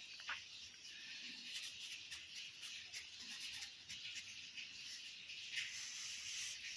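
Ballpoint pen scratching faintly on paper as an equation is written, over a steady hiss.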